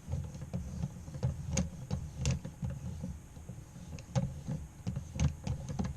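Irregular clicks and short scraping strokes of a knife blade worked against the abrasive of a guided knife-sharpening system, over low handling noise.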